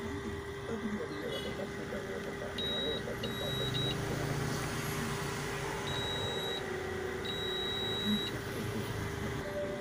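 Multimeter in continuity mode giving a handful of high-pitched beeps, short and longer, as its probes touch points on a TV circuit board; each beep marks a connection between the probed points.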